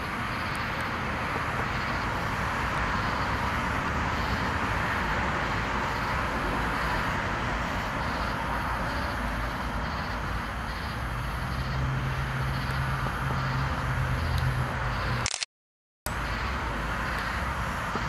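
Steady background noise with no clear event, like distant traffic or outdoor ambience, with faint high pulses repeating about every two-thirds of a second. A low hum joins for a few seconds, then the sound cuts out completely for under a second about fifteen seconds in.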